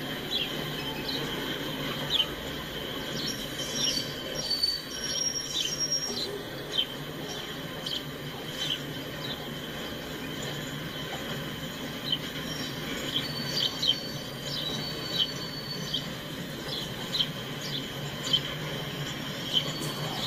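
A very slow freight train of boxcars rolling past: a steady rolling noise with irregular sharp clanks every second or two and short high squeals from the wheels.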